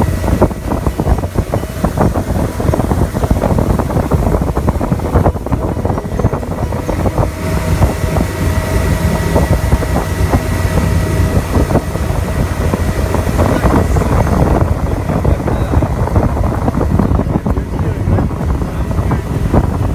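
Tow boat's engine running steadily at speed, mixed with rushing water from the wake and heavy wind buffeting the microphone.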